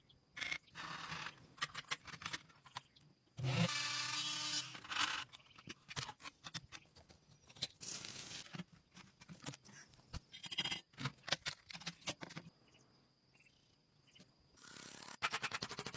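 Irregular scraping, clicks and knocks of metal parts and tools being handled, with a pitched creaking squeal lasting about a second and a half around four seconds in.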